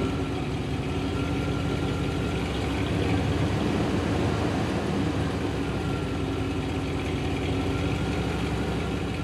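A 1995 Chevy Silverado C2500's 5.7-litre throttle-body-injected V8 idling steadily.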